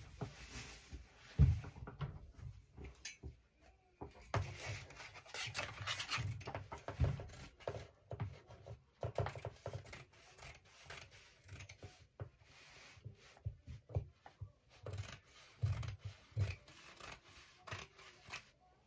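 Scissors cutting through printed fabric lying on a cutting mat: a run of short snips and scraping rubs in irregular bursts.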